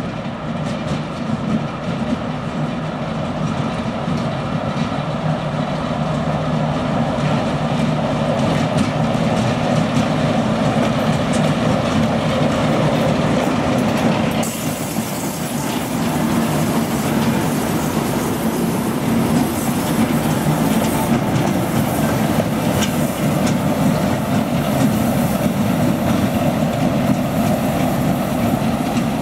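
ChME3 diesel shunting locomotive passing light engine: its six-cylinder diesel runs with a steady low hum, growing louder over the first several seconds as it nears. Its wheels click over the rail joints.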